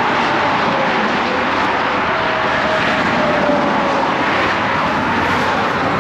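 Steady noise of fast highway traffic passing close by, with a faint falling whine as a vehicle goes past.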